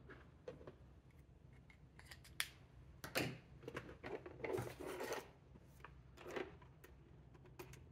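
Craft tools being handled on a wooden tabletop: scattered clicks and knocks, a busier stretch of short rustling, clattering sounds in the middle as a pair of scissors is set down, and a paper trimmer being picked up and moved into place.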